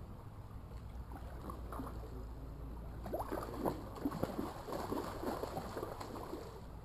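A hooked brown trout thrashing and splashing at the surface of a shallow creek right at the wading angler's legs, over the steady rush of the stream. The splashing starts about three seconds in and goes on in quick irregular bursts.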